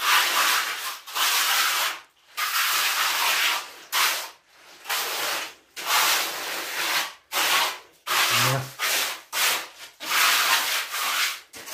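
Trowel scraping over freshly poured wet concrete while smoothing it, in repeated strokes of under a second each, roughly one a second with short gaps between.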